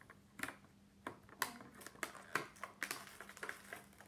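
An envelope and the toy's packaging being handled and pulled at: irregular sharp clicks and crackles, several a second.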